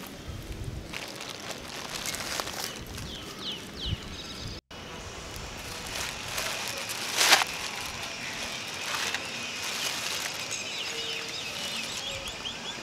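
Thin white plastic bag rustling and crinkling as it is picked up and pulled open by hand, in irregular bursts, with one sharp loud crackle about seven seconds in.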